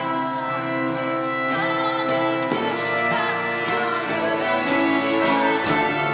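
Swedish folk tune played by an acoustic ensemble: two fiddles carry the melody over sustained harmonium chords and a strummed twelve-string guitar.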